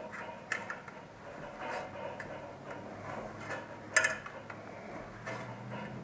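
Irregular light knocks and clicks of hands and shoes on a metal ladder during a climb down, the sharpest knock about four seconds in.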